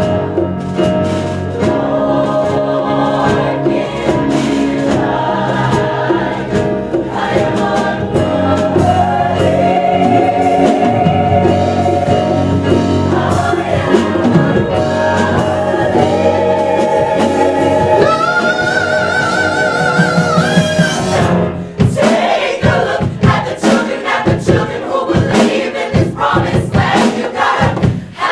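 Concert choir singing a musical-theatre number with accompaniment. A high voice holds a wavering note for a few seconds. About three-quarters of the way through the sound breaks off, and the music picks up again as a rhythmic passage of short sharp beats.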